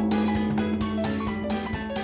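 Background music: a held low note under plucked notes and a steady beat of about four hits a second.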